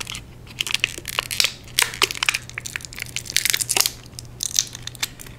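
Thin clear plastic bag crinkling and crackling in the hands as a small plastic figure is worked out of it, in irregular rustles.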